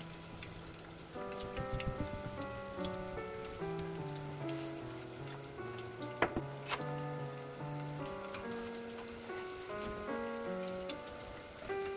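Tofu pieces deep-frying in hot oil: a steady fine crackle and spatter, with background piano-like music playing over it. A couple of sharper clicks come about six seconds in.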